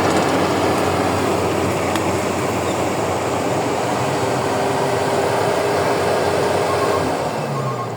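Rice combine harvester running: a loud, steady engine and machinery din with a constant engine tone, easing off slightly near the end.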